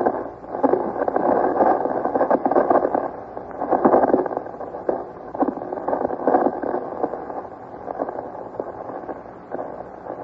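Radio static: a crackling, hissing hash of interference that swells and fades unevenly, the sound of a shortwave relay failing to come through.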